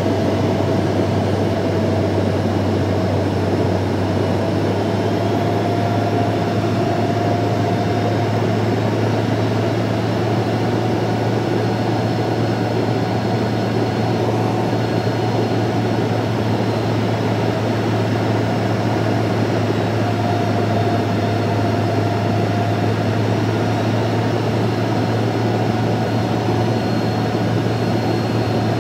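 Steady in-flight cabin noise of a Cirrus Vision Jet: its single Williams FJ33 turbofan and the rush of air over the airframe, a constant low hum under a thin whine that drifts slightly in pitch.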